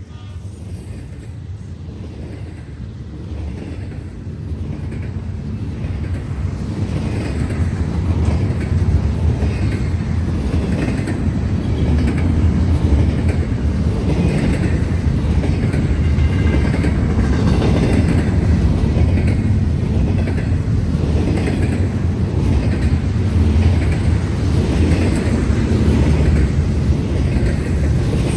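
Intermodal freight train rolling past, its wheels clacking in a steady rhythm over the rail joints. It grows louder over the first eight seconds or so, then holds steady.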